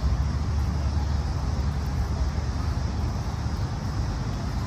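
Steady, deep outdoor rumble of wind buffeting the microphone and road traffic, with no single event standing out.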